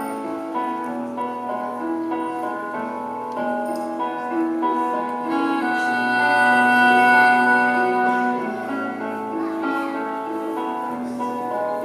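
Slow instrumental music led by a cello, with sustained notes over chords; it swells louder for a few seconds around the middle.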